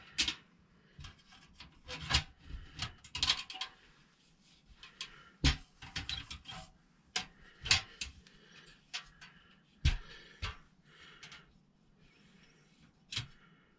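A squirrel trap being baited and set by hand: irregular scrapes and rubs broken by sharp clicks and knocks, the loudest about five and a half, eight and ten seconds in.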